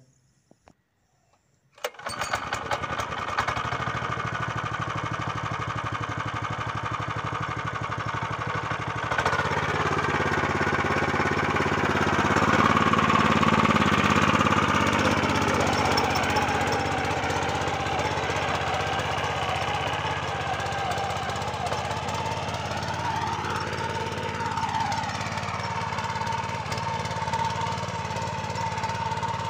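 Walson power weeder's small engine running, coming in suddenly about two seconds in after a moment of near silence. About nine seconds in it grows louder for several seconds, then runs on steadily as the machine tills grassy soil.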